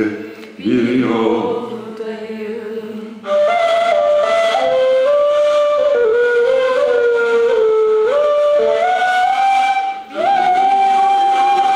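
Turkish ney, an end-blown cane flute, playing a slow, breathy melody that starts about three seconds in. It moves in steps between held notes, pauses briefly for breath near the end, then sustains a long higher note.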